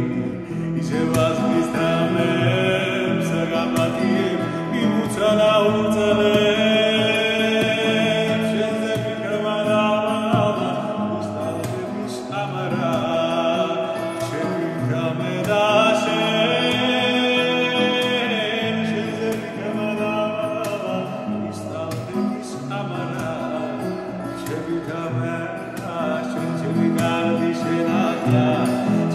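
A man singing in Georgian to his own acoustic guitar accompaniment, the guitar playing steadily under the voice.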